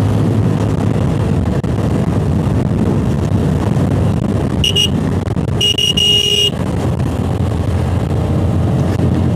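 Bajaj Pulsar NS125's single-cylinder engine running at speed, with wind rushing over the handlebar-mounted phone's microphone. A vehicle horn sounds briefly about four and a half seconds in, then again for about a second.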